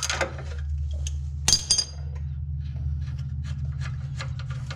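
Ratchet wrench clicking briefly on the 15 mm bump-stop bolt, then a sharp metal clink with a short ring about a second and a half in, followed by light scraping and tapping of metal parts as the bump stop is worked free. A steady low hum runs underneath.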